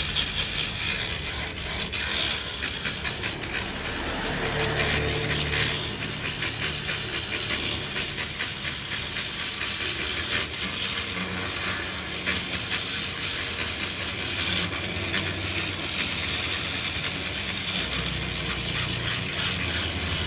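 Hand-held rotary grinder porting a Yamaha RX-King two-stroke cylinder block: a thin, steady high whine with a rasping, scratchy cutting sound that keeps coming and going as the bit works the metal.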